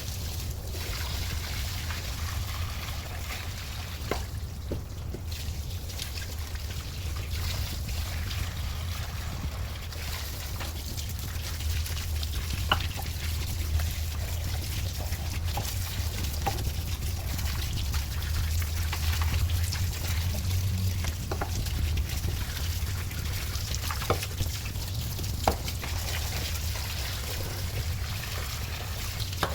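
Liquid trickling and pouring over a steady low hum, with a few light clicks scattered through.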